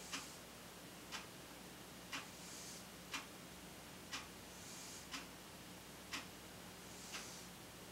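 Clock ticking once a second, each tick a sharp, faint click, over a low steady hum and quiet room hiss.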